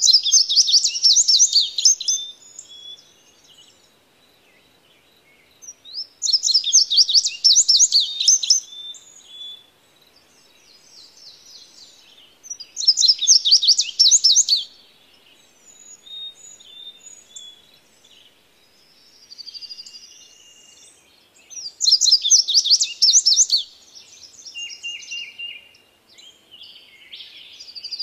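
Blue-grey tanager singing: four bursts of rapid, high-pitched twittering notes, each about two seconds long, several seconds apart, with softer chirps in between.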